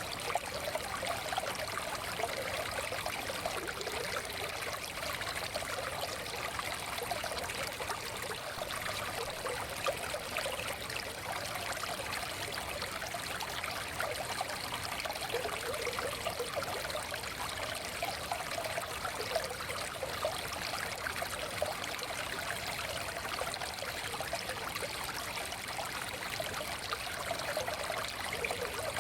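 Small forest stream flowing steadily over stones, a continuous babbling and trickling rush of water.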